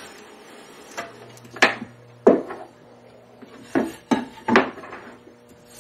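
Wooden boards knocking against a workbench as they are handled: about six sharp knocks in two groups, the loudest a little over two seconds in and again about four and a half seconds in.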